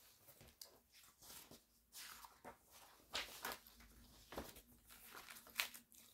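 Pages of a folder being turned by hand: faint paper rustling with short flicks and light taps, coming every second or so.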